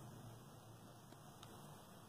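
Near silence: faint room hiss with two very faint clicks about a second apart.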